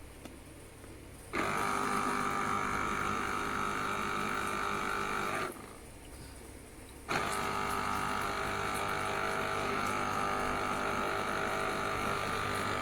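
Electric citrus juicer's motor spinning the reamer while orange halves are squeezed, a steady whirring hum. It runs for about four seconds, stops briefly, then runs again for about six seconds.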